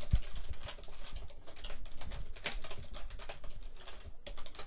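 Computer keyboard typing: an irregular run of quick key clicks.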